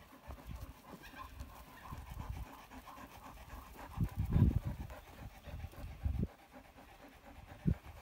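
Hampshire Down rams moving about and breathing, with breathy huffing and low irregular thuds. The loudest stretch comes about four seconds in, and there is a short knock near the end.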